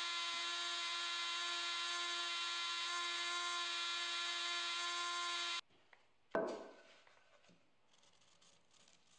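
Handheld rotary carving tool running at a steady high speed, a constant whine that cuts off suddenly about halfway through. Then comes one sharp knock, followed by the faint scratching of a felt-tip marker on walnut boards.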